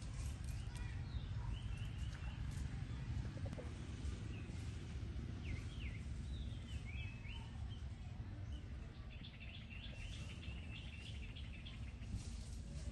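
Outdoor ambience: a steady low rumble with scattered high chirping calls, including a quick run of chirps near the end.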